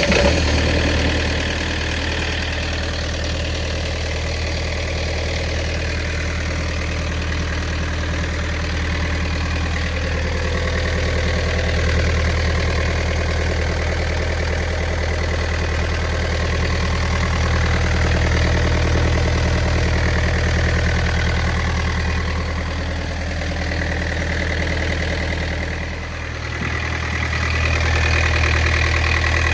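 Inboard diesel engine of a 1989 Irwin 43 Mk III sailboat idling steadily.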